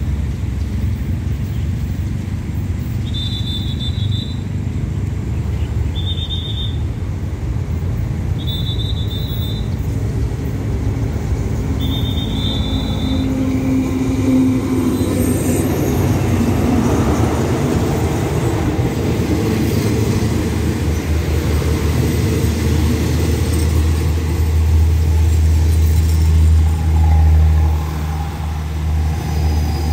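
Alsthom diesel-electric locomotive 4140 bringing an express passenger train into the station: a rumble builds as it draws in, and a steady low drone with the rolling coaches is loudest near the end. A short high tone sounds five times, a few seconds apart, in the first half.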